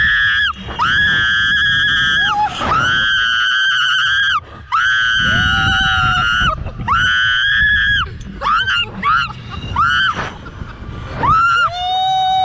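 A woman screaming over and over on a slingshot reverse-bungee ride: long, high-pitched screams of about a second or more each, shorter ones later, with wind rumbling on the microphone. A man's lower held yell comes in near the end.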